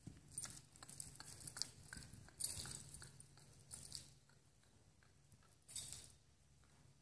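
A horse trotting on the soft dirt footing of an indoor riding arena: dull, irregular hoofbeats that fade as it moves away, with a few short louder hissy bursts, the loudest about two and a half seconds in.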